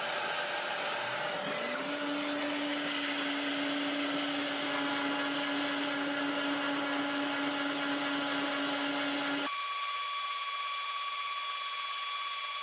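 CNC milling machine spindle spinning up, its whine rising in pitch over about a second and then holding steady under a loud, hissy machine noise. About ten seconds in the lower hum drops away, leaving a thinner, higher steady whine.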